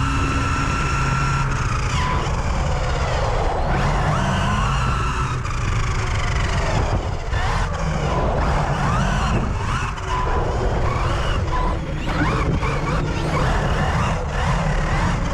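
Electric RC cars running, their motors whining up and down in pitch again and again as they speed up and slow, over a dense rumble of tyre and wind noise with a few short knocks.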